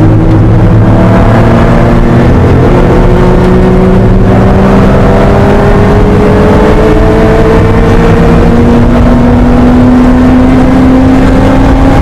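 1980 Porsche 911 SC's air-cooled flat-six, heard loud from inside the cabin, pulling at full throttle along a straight. Its revs climb steadily, with a brief break about four seconds in.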